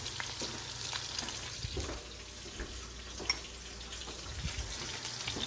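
Beef roast searing in an oiled frying pan, with a steady sizzle and a few small clicks and knocks from handling.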